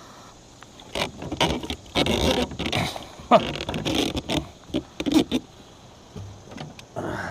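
Irregular scraping, rustling and clicking of hands and gear on a kayak as a bass is handled for release.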